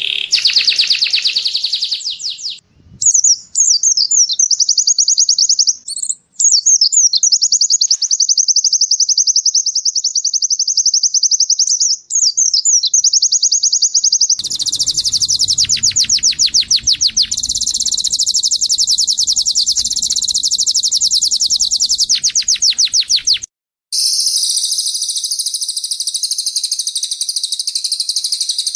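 Caged small songbirds singing loud, high, rapid trills. The audio is a string of spliced recordings that cut in and out abruptly several times, with a long fast rattling trill in the first half and denser buzzing trills after about 14 seconds.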